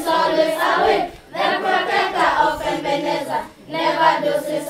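A group of children singing a worship song together, in three sung phrases with short breaths between them.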